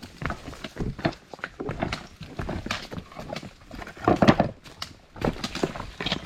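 Hiker's footsteps crunching and scuffing on the trail, an irregular series of steps that is loudest about four seconds in.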